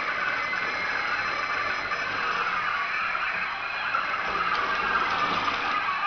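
iRobot Create robot's drive-wheel motors and gears whirring steadily with a slight squeal as it is driven and turned by remote control, the pitch wavering a little.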